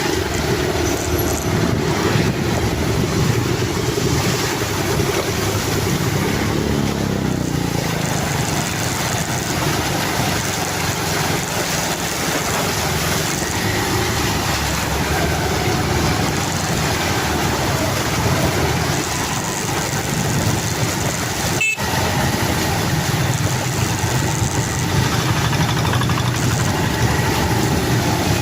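Steady vehicle engine and traffic noise with no speech, broken by a momentary drop-out about three-quarters of the way through.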